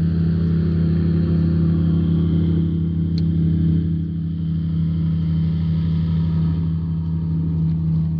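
A motor aboard a bass boat running with a steady, loud low hum that switched on abruptly just before.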